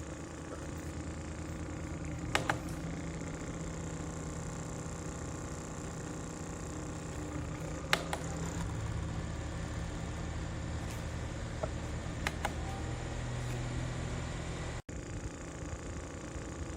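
OCOOPA 5-inch rechargeable USB desk fan running steadily with a motor hum and airflow noise. A few sharp clicks come about two seconds in, near the middle and about three-quarters through.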